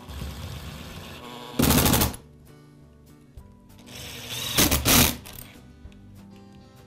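Two short, loud bursts of rapid clicking about three seconds apart as a screwdriver drives the transmission screws into a Milwaukee cordless drill's housing. Faint background music underneath.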